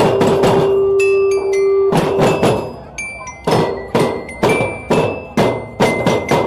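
Percussion music: repeated sharp strikes mixed with ringing metallic tones at several pitches, one low tone held for about two seconds at the start, then a steady beat of about two strikes a second.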